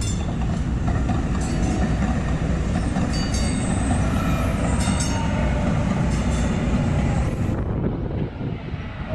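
Kinki Sharyo Super LRV light rail train running past close by, a steady low rumble with a faint whine and its wheels clicking sharply over track joints and switches several times. The hiss of the passing cars drops away about seven and a half seconds in.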